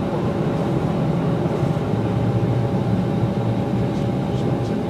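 Steady cabin noise inside a Boeing 747-400 rolling slowly on the ground: an even low rumble with a faint steady whine over it.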